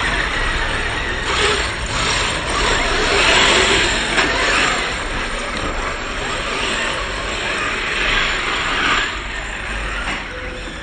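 Radio-controlled cars running on a track, a dense whirring rush that swells and fades every second or two as the cars pass.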